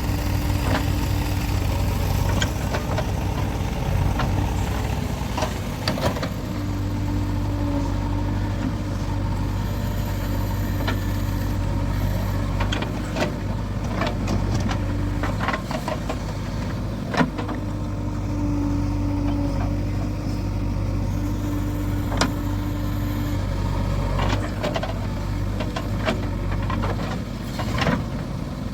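JCB 3DX backhoe loader's diesel engine running steadily, its note rising and falling in long stretches as the machine works. Scattered sharp knocks and clanks sound over it, the loudest about two-thirds of the way through.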